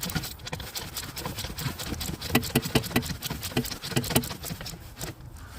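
Hand tools working the mounting nuts of a 2007 Ford Transit's replacement turbo: irregular metallic clicks and taps, with a run of quick, even clicks around the middle.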